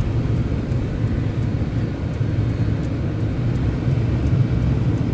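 Steady low rumble of a Mercury car driving on a snowy road: engine and tyre noise with no change in speed.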